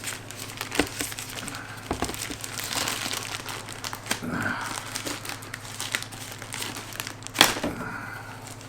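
Plastic packaging crinkling and rustling as it is handled, with scattered light clicks and one sharper click about seven seconds in.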